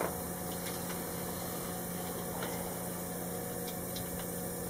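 A steady low hum, with a few faint clicks as wiring is handled.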